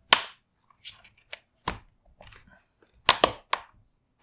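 Plastic retaining clips of an Acer Swift X laptop's bottom cover snapping loose as a prying tool levers up the back edge: a series of sharp clicks, the loudest just after the start and a quick run of three about three seconds in.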